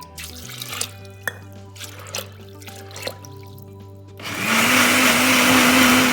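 Electric blender motor running for about two seconds, starting about four seconds in and cutting off suddenly, over background music. A few light clicks come before it.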